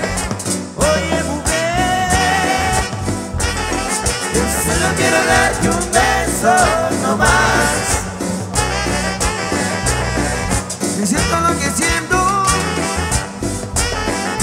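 Live Latin dance band music: a melody line over a steady bass and beat.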